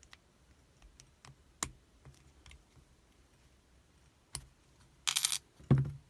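Small metal clicks and taps of a lock and its key being handled, with a short rattle a little after five seconds in and a louder clack just after it.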